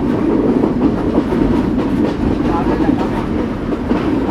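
Steady running noise of a locomotive-hauled express train heard from inside a passenger carriage: a continuous rumble of the wheels on the track, with a few faint clicks.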